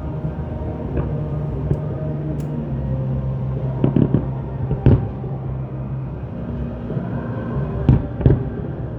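Aerial fireworks shells bursting in sharp bangs: one about a second in, a quick cluster around four seconds, the loudest just before five seconds, and two more near the end, over a steady low hum.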